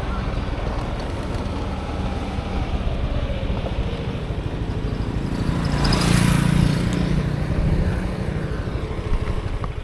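Steady vehicle engine and traffic noise, swelling about six seconds in as something louder passes close, then cutting off abruptly.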